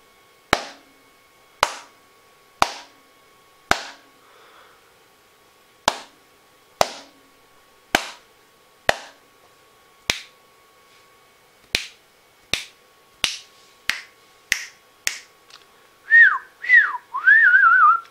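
A person snapping their fingers about once a second, some fifteen sharp snaps, then whistling a few wavering, gliding notes near the end. These are test sounds for an LM393 sound sensor module, and neither one trips it: only a clap does.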